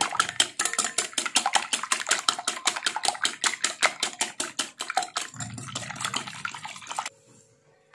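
Wire whisk beating eggs in a glass bowl: quick, even clicking of the whisk against the glass, about seven strokes a second, which stops suddenly near the end.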